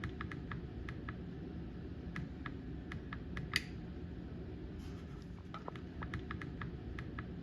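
A run of light, irregularly spaced clicks and taps, with one sharper click about halfway through, over a steady low background rumble.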